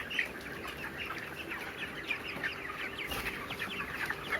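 A flock of 29-day-old broiler chickens calling continuously: many overlapping short, falling peeps, with a faint steady hum underneath.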